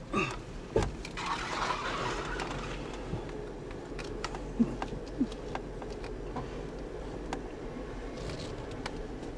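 A 4x4's engine running at low speed as it crawls over a muddy, rutted trail, heard from inside the cab. Scattered knocks and rattles come from the body and suspension jolting over the ruts.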